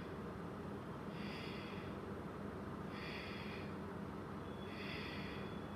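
A woman breathing with effort while holding a side crow (Parshva Bakasana) arm balance: short breaths about every two seconds.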